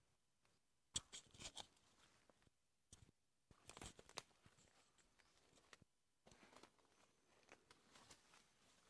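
Leaves and twigs rustling and snapping in short, irregular bursts of crackling, with a sharp snap about a second in.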